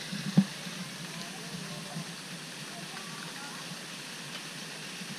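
Steady hiss of a fountain spraying into a pond, with faint voices in the background and a sharp thump about half a second in.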